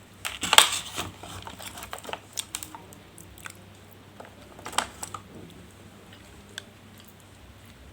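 Someone eating: a loud crackly bite about half a second in, then scattered chewing clicks, with another crackly bite near five seconds.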